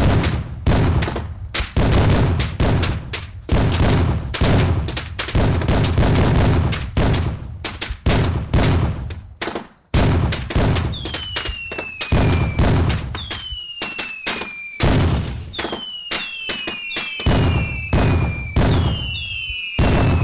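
Fireworks going off in rapid succession: a dense run of sharp bangs and booms. About halfway through, falling whistles start to sound between and over the bangs.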